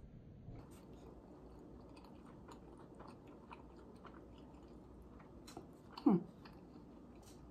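Close-up chewing of a soft flour-tortilla taco: faint, wet mouth clicks and smacks. About six seconds in comes a brief, louder sound falling in pitch.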